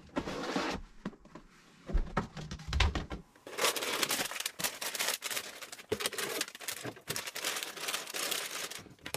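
Foil pouches of instant mashed potatoes crinkling and rustling as they are handled and packed by hand into a plastic storage bin, from about three and a half seconds on. Before that, a few low thumps.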